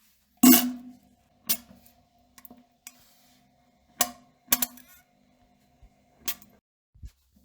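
Person defecating on a toilet: a series of short, sharp pops and plops at irregular intervals, the loudest about half a second in, over a faint steady hum.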